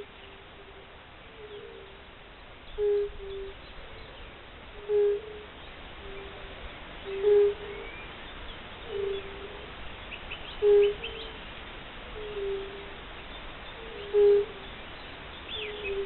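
Fire-bellied toads calling: short single notes at one low pitch, repeated about every two seconds, with two toads overlapping at slightly different pitches. Faint high bird chirps come in past the middle and again near the end.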